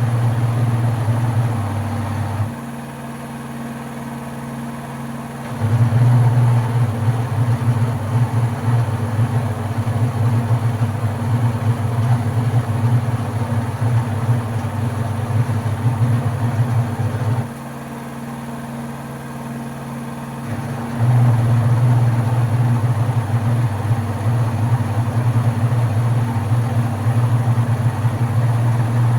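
LG washing machine motor running with a loud, deep hum that sounds like racing noises. It drops quieter for about three seconds twice, about 2.5 and 17.5 seconds in, as the drum pauses between turns, then surges back.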